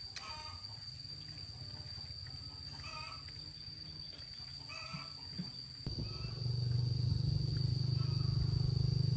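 A steady high insect drone over a low rumble. The rumble grows much louder about six seconds in, and a few faint short chirps come and go.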